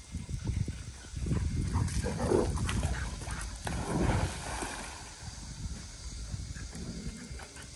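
Retrievers growling and grumbling at each other in rough play: an irregular low rumble, loudest in the first half.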